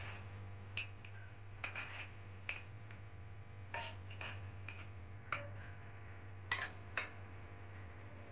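Spatula clicking and scraping against a wok as chicken feet, pork and mushrooms in sauce are stir-fried: about a dozen sharp, irregular clicks over a steady low hum.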